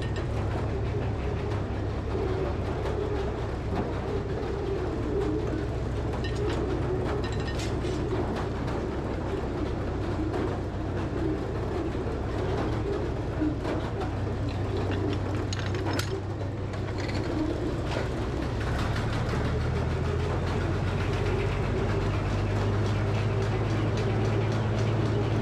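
Frick sawmill running: a steady mechanical drone with a low hum and scattered light clicks. The low hum grows a little louder about three quarters of the way through.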